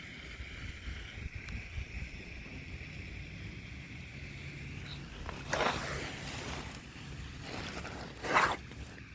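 Wind buffeting the microphone as a low rumble, with two short rushing swishes about five and a half and eight seconds in; the second is the loudest.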